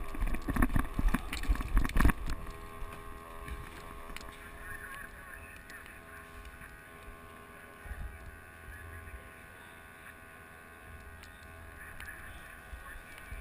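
Running footsteps and gear jostling against a helmet-mounted camera, loud irregular thumps for about the first two seconds. Then a quieter steady background hum with a few faint knocks.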